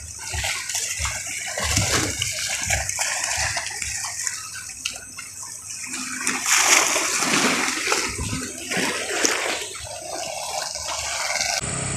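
Small sea waves sloshing and splashing against a concrete seawall and the rocks along its foot, in irregular surges. The sound changes abruptly to a steadier background near the end.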